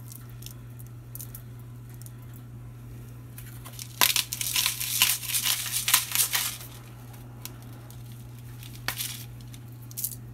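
Pepper mill grinding: a run of dry, crunchy crackling lasting about two and a half seconds from about four seconds in, with a few single clicks around it. A steady low hum sits underneath.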